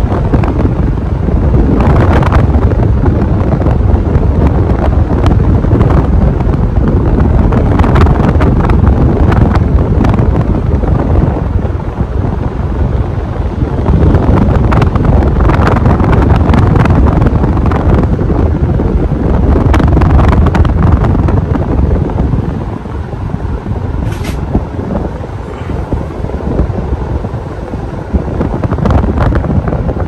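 A Hunter Dominion 44-inch ceiling fan running, its blade wind buffeting the microphone as a loud, gusting rumble that eases somewhat about two-thirds of the way through.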